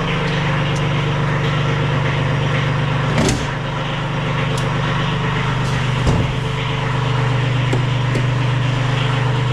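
An engine idling steadily, with two short clunks about three and six seconds in.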